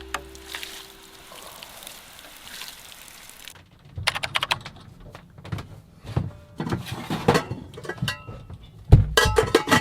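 A fading music tail, then a few quiet seconds, then a run of sharp knocks and clattering of hard objects being handled, some with a short ringing note, with one heavy thunk near the end.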